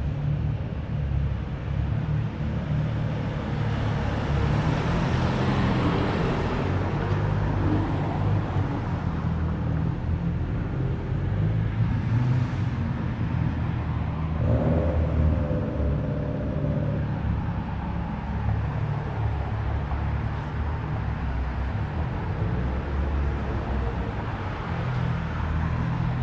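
Car engines running at low speed with a steady low exhaust rumble, as cars roll slowly past. A wider swell of engine and tyre noise comes a few seconds in as one car goes by.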